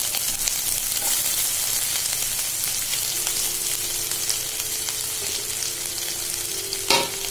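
Sliced onions and crushed garlic sizzling as they fry in hot mustard oil in a kadai. A faint steady hum comes in about three seconds in, and there is one short knock near the end.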